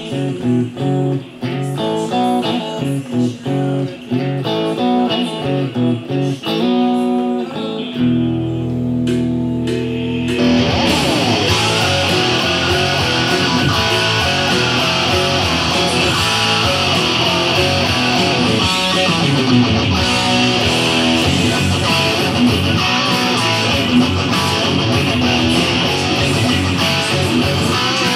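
Electric guitar playing a rock song over its band recording. For the first several seconds it picks single notes in a riff, then holds notes briefly. About ten seconds in, the full band with drums and distorted guitar comes in and the sound gets thicker and brighter.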